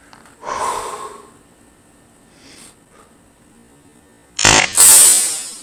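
A Crosman 2400 KT .177 airgun firing once, about four and a half seconds in: a sharp report running into about a second of noise. A softer burst of noise lasting about a second comes near the start.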